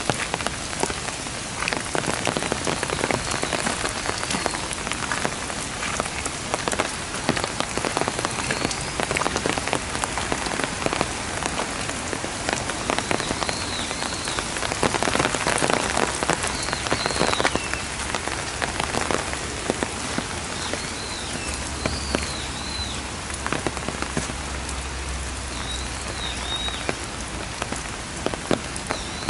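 Heavy rain pouring onto wet paving and foliage, dense with close drop strikes, heavier for a few seconds around the middle. A few short high chirps sound now and then above the rain, and a faint low rumble comes in for a few seconds past the middle.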